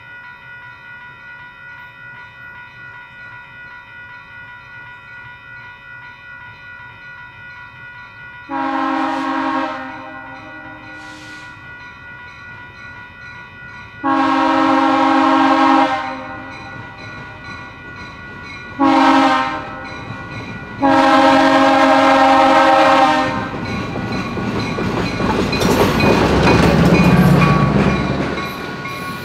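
Grade-crossing warning bell ringing steadily as diesel switcher SW8m #803 approaches running light. The switcher sounds its chime horn in the grade-crossing pattern: long, long, short, long. Near the end the locomotive's diesel engine and wheels grow loud as it reaches the crossing.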